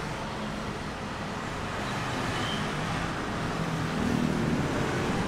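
Road traffic noise: a steady hum of passing vehicles, growing a little louder near the end.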